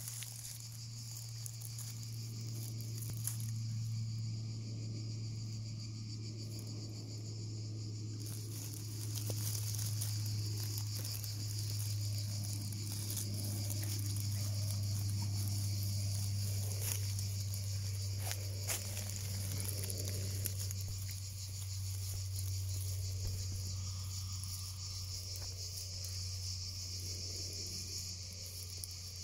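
A steady, high-pitched insect chorus, over a constant low hum. A few faint crackles of dry leaf litter come through now and then.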